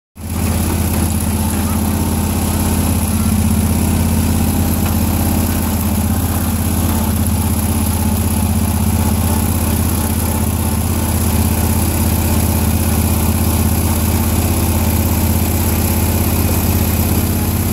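John Deere riding lawn tractor's engine running steadily with a low hum while the tractor drives across grass.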